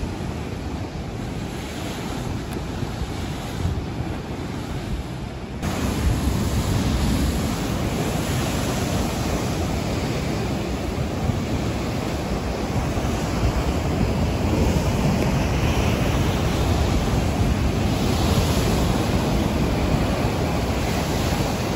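Rough sea surf breaking and crashing against a concrete seawall, with wind buffeting the microphone. The sound grows suddenly louder and fuller about six seconds in.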